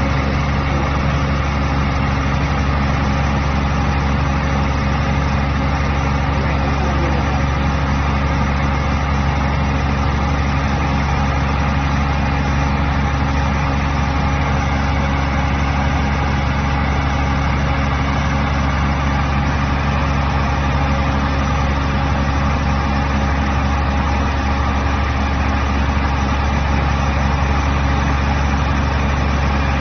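Diesel engine of a mobile wood chipper shredder running at a steady speed, with no change in pitch or load.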